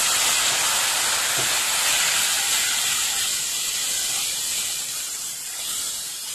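Sauce sizzling and hissing in a hot kadai as fried cauliflower florets are stirred through it, a steady hiss that slowly dies down toward the end.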